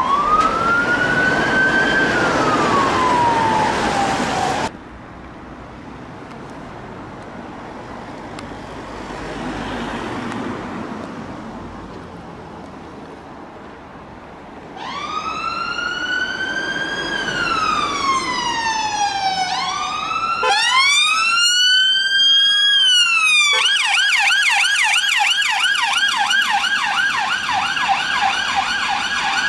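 UK police car sirens. A slow rising and falling wail cuts off after about five seconds and is followed by a quieter stretch with no siren. Then a siren starts wailing again, switches to a quicker yelp, and near the end to a rapid warble.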